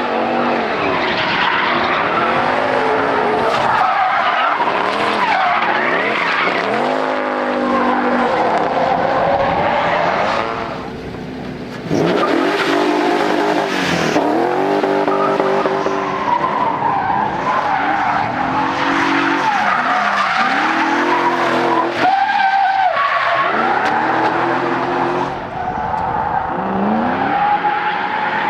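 Drift cars at full throttle, engines revving up and falling back again and again over the steady hiss of tyres skidding and screeching. The sound drops briefly about a third of the way through, then comes back abruptly.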